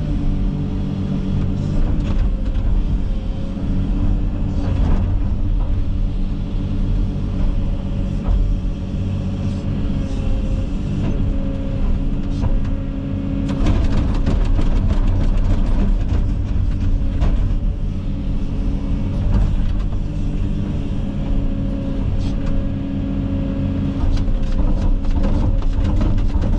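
Komatsu 360 excavator's diesel engine running steadily under hydraulic load, with frequent cracks and knocks from the brush and debris being worked, heaviest about halfway through and near the end.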